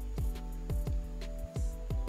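Background music with a steady drum beat over sustained held notes.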